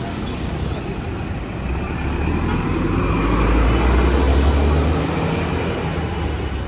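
Road traffic noise, with a vehicle's low rumble swelling and then fading in the middle.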